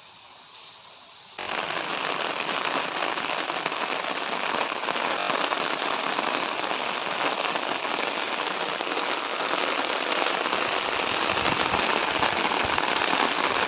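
Heavy rain, a dense patter of many small drops. It gets much louder suddenly about a second and a half in and then stays steady.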